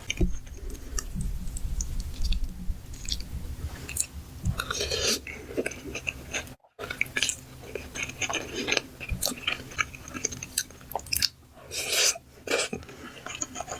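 Close-miked chewing of a big mouthful of spaghetti: irregular wet mouth clicks and smacks, with a brief cut to silence about halfway through.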